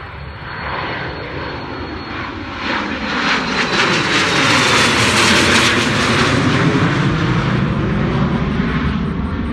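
Medium-sized private jet climbing out just after takeoff, its engines at takeoff power. The jet noise grows louder to a peak about five or six seconds in, with a downward pitch sweep as it passes, then begins to ease.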